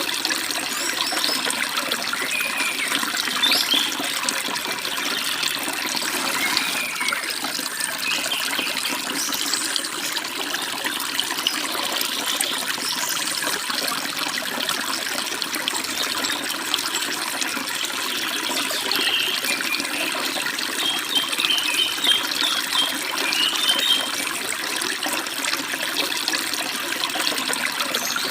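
Forest stream babbling and splashing steadily, with small birds chirping now and then over the water, a quick run of chirps about two-thirds of the way through.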